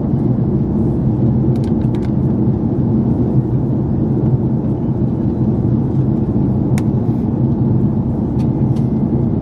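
Steady low drone of an Airbus A330-300 airliner cabin in flight: engine and airflow noise, with a few faint clicks.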